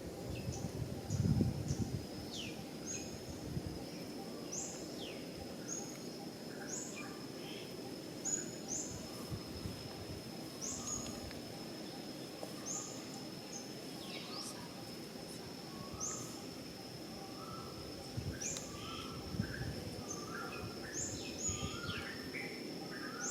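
Outdoor ambience: short, high bird-like chirps repeat every second or two over a steady high-pitched insect whine, with a few falling whistles. A louder low thump or rustle comes about a second in.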